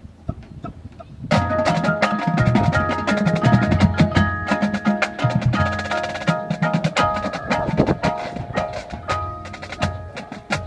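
A drumline with its front ensemble playing: after a few soft taps, marimbas and other mallet keyboards come in together with snare, tenor and bass drums about a second in, ringing notes over dense drumming, and the playing thins toward the end.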